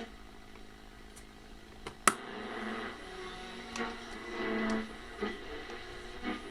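Vintage Panasonic RC-6234 clock radio's speaker between stations: hiss and crackle with faint snatches of broadcast. A sharp click about two seconds in and lighter clicks scattered through, as the dial is tuned.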